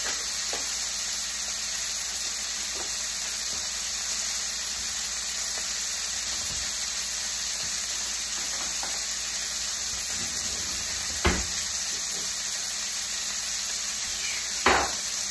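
Steak sizzling in a frying pan, a steady hiss, with two short sharp knocks, one past the middle and one near the end.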